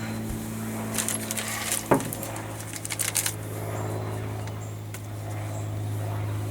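Small metal parts clinking and tapping as a steering wheel is fitted onto the boat helm's shaft, a cluster of sharp clicks in the first half, over a steady low hum.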